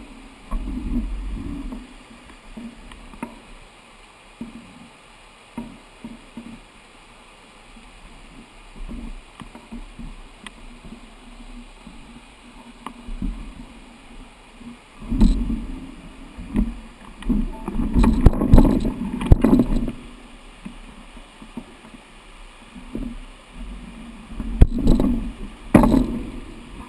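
Uneven, gusty low rumble of wind buffeting the microphone, with a few sharp knocks, mostly in the latter half.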